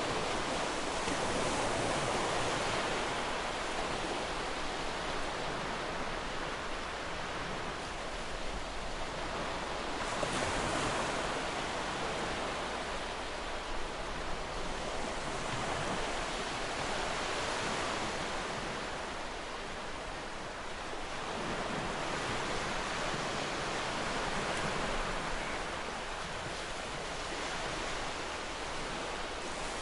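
Sea waves breaking and washing onto a shore, a continuous surf hiss that swells and eases every few seconds.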